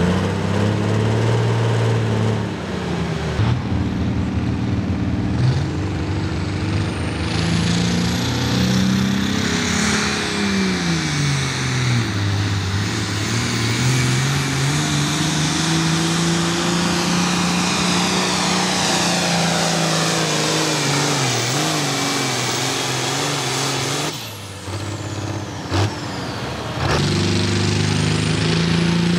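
Ford farm tractors' diesel engines running hard at full throttle while pulling a weight-transfer sled. The engine pitch sags under the load about twelve seconds in, then climbs back. The sound drops off briefly near the end before the engine runs loud again.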